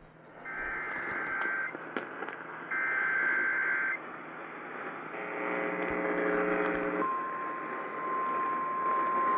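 Emergency Alert System data header received over AM radio: short bursts of high, rapid two-tone digital screeching, each about a second long, heard over radio static and hum. A buzzing chord of about two seconds follows, then a steady alert tone comes in about seven seconds in and holds.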